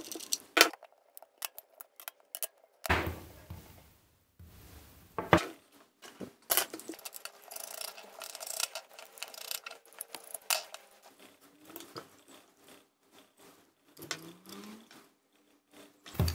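A Wismec Reuleaux RX2/3 box vape mod being taken apart by hand, mostly small sharp clicks and ticks. There are a few louder single clicks, and a dense run of ticks in the middle as a small precision screwdriver works at the tiny screws in the plastic battery compartment.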